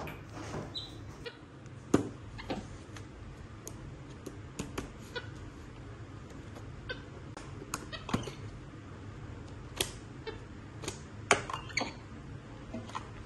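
Scattered light taps and clicks of a pen and paper handled on a plastic magnetic drawing board by a capuchin monkey, over a faint steady low hum. A short high squeak comes about a second in.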